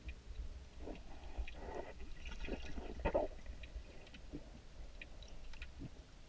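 Underwater sound picked up by a submerged camera: a steady low rumble with irregular gurgling water noises, loudest about three seconds in, and scattered faint clicks.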